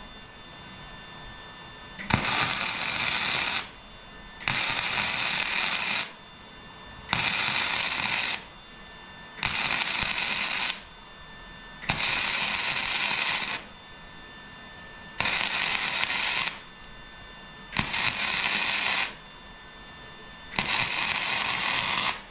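MIG (wire-feed) welder arc crackling on steel tubing in eight short bursts of about a second and a half each, with brief pauses between: a joint being laid down in a series of stitch welds.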